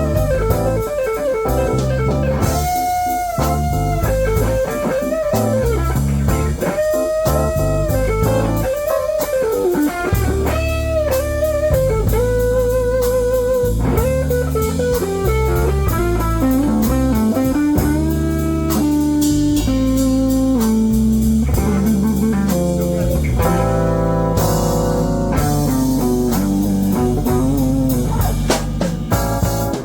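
Band playing a slow blues instrumental break: a lead electric guitar solo with bent, wavering notes over bass and drums, the melody stepping downward midway.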